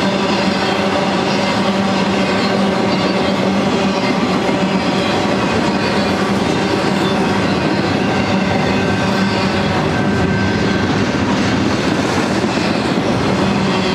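Freight train cars, double-stack containers and piggyback trailers, rolling past close by: a steady, loud run of steel wheels on rail, with a layer of thin steady ringing tones over the rumble.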